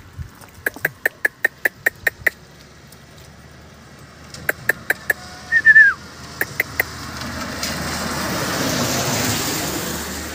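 A run of quick sharp clicks, about six a second, then a few more clicks and a short falling squeak, the loudest sound. Then a vehicle passes, its noise swelling and fading over about three seconds.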